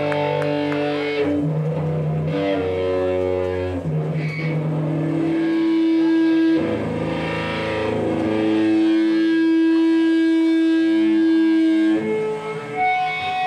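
Amplified electric guitar and bass playing slow, held notes and chords live, the notes changing every second or so, then one long sustained note from about five seconds in until near the end.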